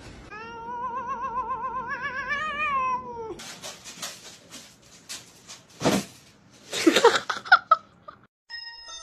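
A cat gives one long wavering meow of about three seconds, its pitch warbling and rising slightly before falling away. Then comes scratching in cat litter with two short, louder cries, and a chime-like music jingle starts near the end.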